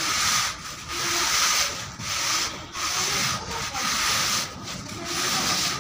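A long straightedge (screed batten) scraping over fresh cement plaster on a wall: a run of about seven scraping strokes, each under a second, with short breaks between. This is the plaster being ruled off level while it is still wet.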